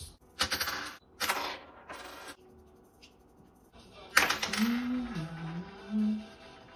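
A nickel flipped onto a hard tabletop lands with a sharp clink about four seconds in and rings on as it spins on its edge, fading over about a second. A few short clatters come earlier, and a brief hum of a voice sounds under the ringing.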